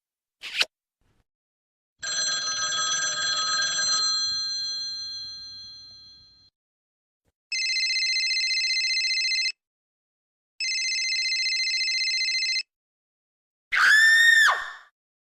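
A telephone ringing twice, each ring a trilling tone about two seconds long, with a one-second gap between them. Before the rings a chime-like tone fades out over about four seconds, and near the end a short sound glides up and then falls in pitch.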